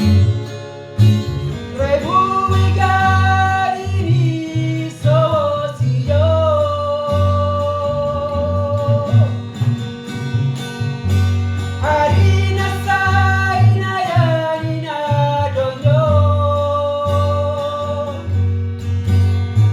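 A song: a solo voice singing long, held, wavering lines over a guitar-led band with a steady bass.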